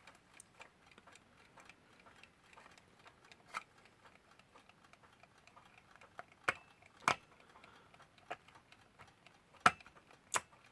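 Westclox Lark alarm clock movement ticking faintly and steadily, with a few sharper, louder clicks of small parts being handled as a hand is fitted, the loudest near the end.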